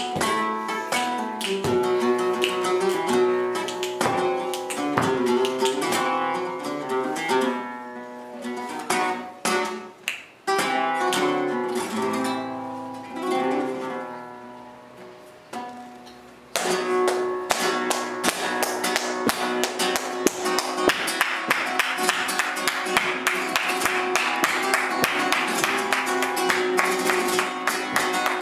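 Live flamenco guitar playing picked runs, which thin out and fade to a quiet stretch in the middle, then break into a loud, dense strummed passage. Rapid sharp taps run over that last passage.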